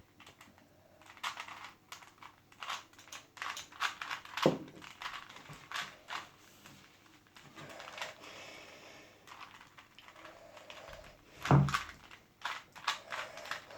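Plastic Rubik's Cube being turned by hand, its layers snapping round in quick irregular clicks, with a louder knock twice: about four and a half seconds in and near the end.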